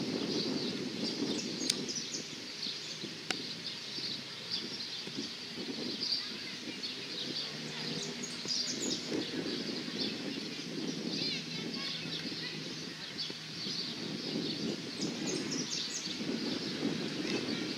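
Outdoor ambience of birds chirping and singing over a steady low background noise, with two sharp clicks about two and three seconds in.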